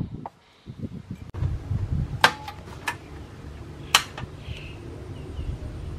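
The last chop of a knife on a wooden cutting board, then a steady low rumble with three sharp clicks and knocks from cookware being handled at a gas stove.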